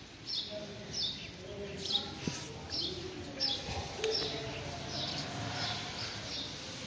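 A small bird chirping a short, high note over and over, very evenly, about once every two-thirds of a second, over a faint murmur of voices.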